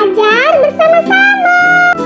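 Background music: a lead melody with sliding, swooping notes over steady held chords.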